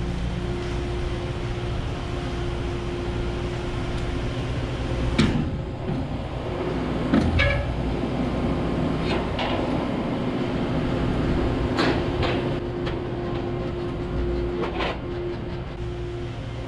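Skid loader engine running steadily as the machine works its pallet forks under a steel tube gate, lifts it and drives off with it. Sharp metal clanks of fork against gate come several times, the loudest about five and seven seconds in.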